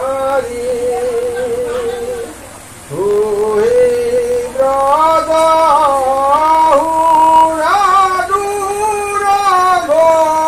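A voice singing a slow Assamese devotional naam (naam-prasanga chant) in long held notes that bend and waver, with a short break just before three seconds in.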